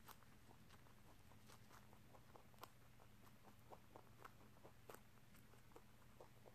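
Rabbit chewing a crunchy snack: fast, faint crunching, several bites a second, with a few sharper cracks.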